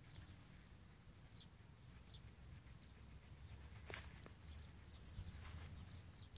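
Near-quiet outdoor background: a low rumble and a few faint, short, high chirps. One sharp click comes about four seconds in, with a softer one a second later.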